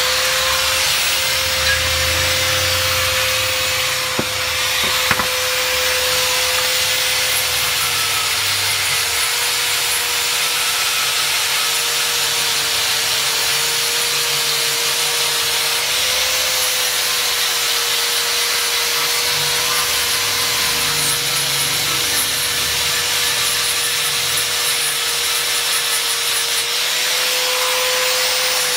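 Electric angle grinder with a sanding disc running steadily, sanding a wooden knife handle: a constant motor whine over a loud rasping hiss, the pitch sagging a little now and then as the disc is pressed into the wood.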